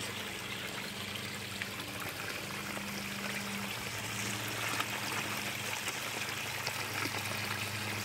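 Water splashing and trickling steadily as a small garden-pond waterfall pours off stacked stones into a preformed plastic pond, along with a pond fountain's spray. A steady low hum runs underneath.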